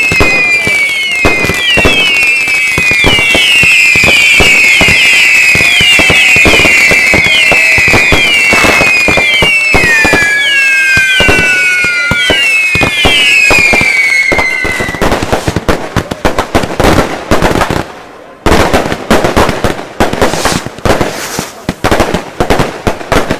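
Consumer fireworks going off in quick succession. For about the first fifteen seconds many whistling fireworks overlap, each whistle starting high and falling in pitch, over a run of sharp cracks. After that come rapid bangs and crackling, with a brief gap a little past the middle.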